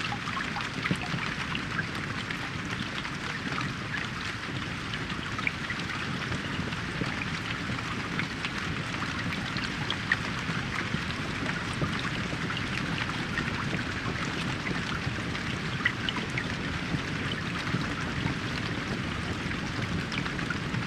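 Steady rain falling in a forest: an even hiss with many individual drops ticking close by and a low rumble underneath.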